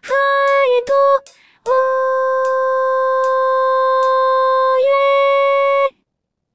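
Synthesized female singing voice (CeVIO) sings two short notes, then holds a long steady 'oh' and steps up to a final 'yeah' note that stops about six seconds in. This is the closing chord of an a cappella medley's practice part.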